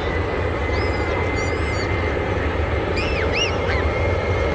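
Aircraft engine noise at an airport: a steady low rumble with a thin high whine held on one pitch. A few short rising-and-falling bird chirps come about a second in and again around three seconds.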